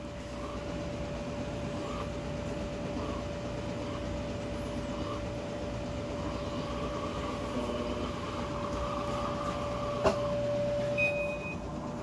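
Brastemp BWK14 top-load washing machine beginning its spin cycle: a steady machine hum with a single sharp click about ten seconds in, after which the sound changes as the laundry basket starts to turn.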